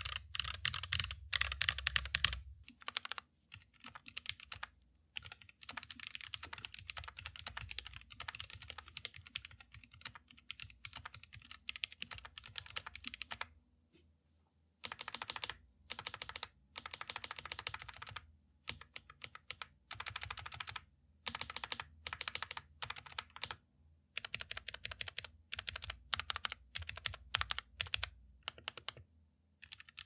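Typing on a Glorious GMMK Pro mechanical keyboard: runs of rapid key clacks in bursts with short pauses between them. About two and a half seconds in, the sound changes and becomes quieter, with less bass.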